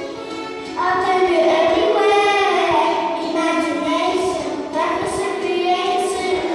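Two children singing a song in English into microphones over backing music, their voices coming in loudly about a second in.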